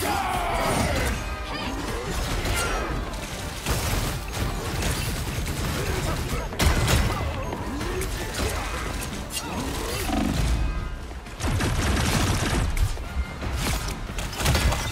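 Video game combat audio: a dense run of ability effects, hits and impacts over background music, with brief bits of voice.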